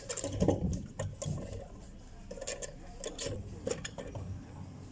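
Irregular clicks, knocks and scraping of tools and metal parts being worked while a car's fuel pump is taken out, with the loudest knocks in the first second.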